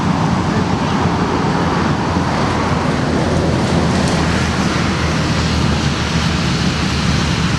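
Steady rumble of motor traffic, a low hum under an even hiss.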